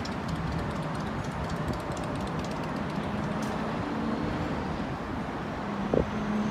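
Steady downtown traffic noise: a mix of distant road traffic with a low engine hum coming and going. A single short knock near the end.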